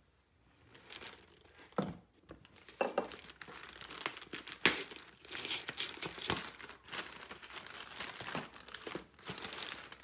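Crinkly packaging being handled: an irregular run of crinkles and rustles that starts about a second in and lasts several seconds.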